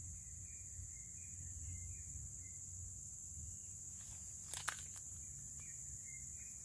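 Steady high drone of insects with faint repeated chirps, and two brief clicks about four and a half seconds in.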